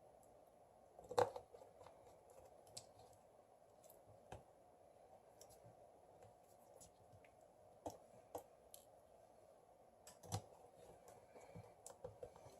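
Scattered small clicks and taps of tools and phone parts being handled on a workbench during smartphone reassembly, the loudest about a second in and another near the end, over a faint steady room hum.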